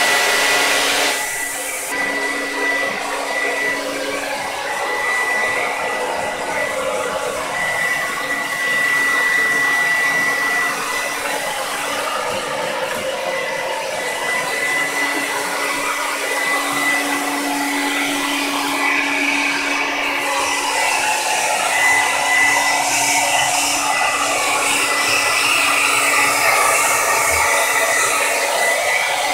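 Handheld hair dryer blowing steadily: a rush of air with a constant high whine and a lower hum from its motor.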